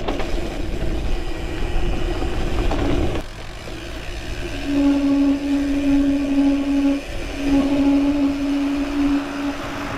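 Bicycle riding noise: tyre and wind rumble on the action camera, then a steady buzzing hum from the rear freehub while coasting, in two stretches of about two seconds with a short break between them.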